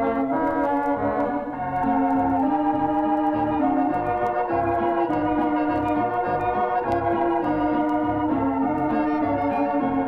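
Background music: an organ-like keyboard tune of held notes and chords that change pitch steadily throughout.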